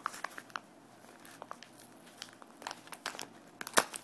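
Anti-static bag being opened and handled: irregular small crinkling crackles of the plastic, with one louder snap near the end.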